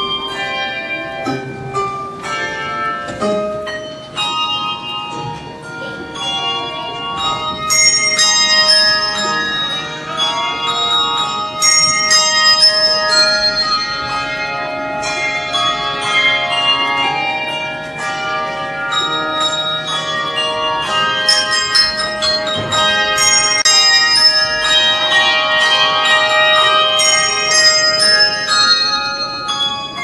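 Handbell choir playing a piece of music: many tuned handbells rung in turn, their clear notes ringing on and overlapping. A softer passage a few seconds in gives way to fuller, denser ringing from about eight seconds on.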